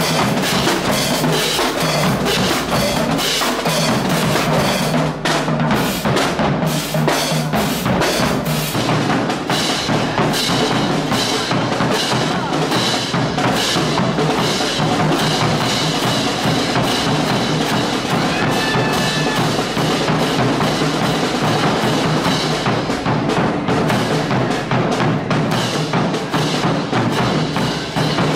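Street drum band playing a rapid, steady beat on bass drums, snare drums and crash cymbals, the strikes densely packed with no break.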